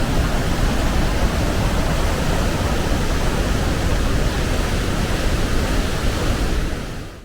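Steady roar of Sunwapta Falls, glacial river water pouring down into a narrow rock canyon. It fades out near the end.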